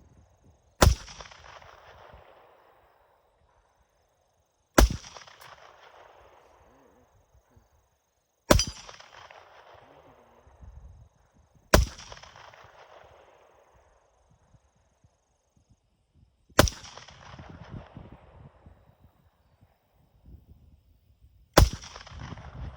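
Six single handgun shots fired slowly, a few seconds apart, each with an echo trailing off after the crack.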